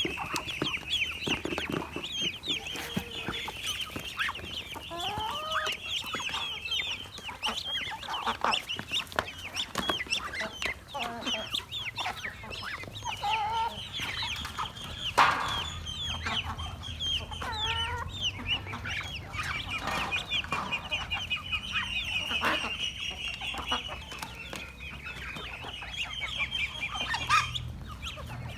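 A flock of ducklings peeping continuously in rapid high cheeps, mixed with a few lower calls and frequent short sharp clicks.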